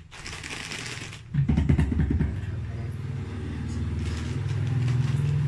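A motor vehicle's engine running, a low steady hum that comes in about a second in and slowly grows louder. Before it, a plastic bag rustles briefly.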